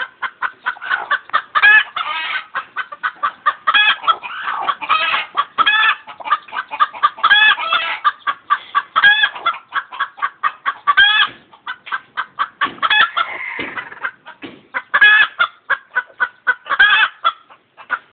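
Chicken clucking rapidly, several clucks a second, with a louder rising-and-falling screech every couple of seconds.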